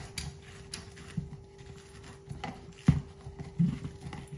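A lemon half, pressed inside a cup, being twisted by hand on the cone of a white plastic manual citrus juicer: irregular knocks and rubbing of plastic, with one sharp knock about three seconds in.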